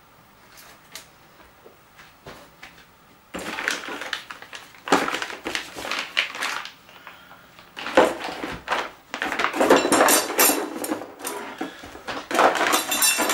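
Clear plastic parts bags crinkling and rustling as they are handled and shifted in a cardboard kit box, with small clicks and knocks from the bagged parts. It starts about three seconds in after a few faint clicks, and goes on in irregular bursts.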